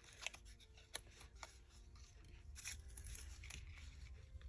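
Faint rustling of paper being handled, with a few small sharp clicks in the first second and a half.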